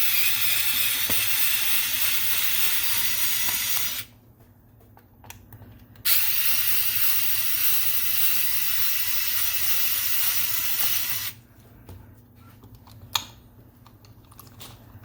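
Power drill-driver backing out the two rear mounting screws of a deadbolt, running steadily in two spells of about five seconds each with a short pause between. A single click follows near the end.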